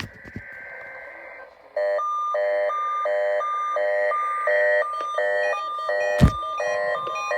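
Weather radio receiver's alarm going off for the required weekly test. After a faint hiss with a thin high tone, it starts about two seconds in: a loud two-tone alternating beep, about one cycle every half second. There is a single sharp click near the end.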